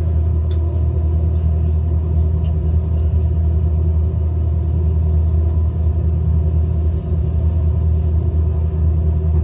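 Steady low rumble of a fishing boat's engine running, even throughout.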